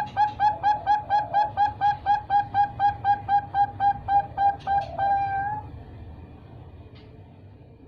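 Three-month-old Bangkok zebra dove (perkutut) chick singing: a fast, even run of short staccato coos, about four or five a second. It ends about five seconds in with one longer drawn-out note.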